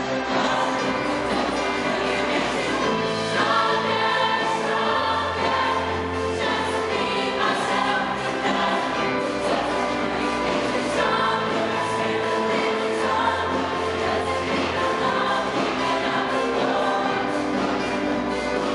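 Mixed-voice show choir singing a number in harmony: many voices together, holding chords that change every second or so.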